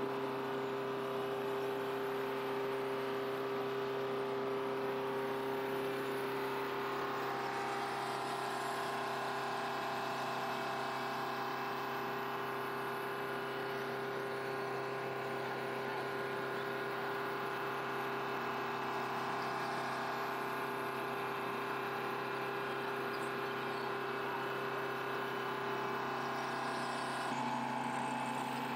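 Steady jet turbine whine on an airfield ramp: a constant drone carrying several high, steady tones, whose pitches shift about seven seconds in and again near the end.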